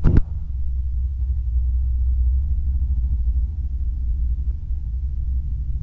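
A 1955 Chevrolet's engine running at a low, steady idle as the car rolls slowly past, with a brief click right at the start.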